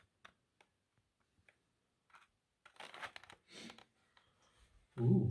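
Faint scattered clicks and a soft scuffing rustle about three seconds in, then a short burst of voice near the end.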